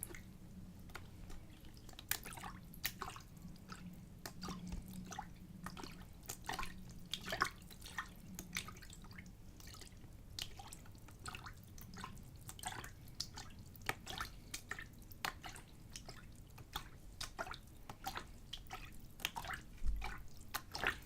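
A small amount of water splashed back and forth in a container, close up: soft, irregular little splashes and drips, several a second.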